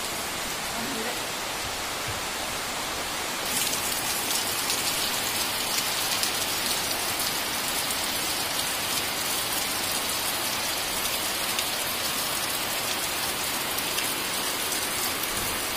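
Steady rain with a dense patter of drops, growing louder about three and a half seconds in.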